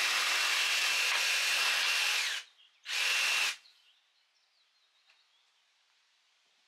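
Cordless jigsaw cutting a wooden board: a steady high motor whine with blade noise for about two and a half seconds, a brief stop, then a second short burst of about half a second.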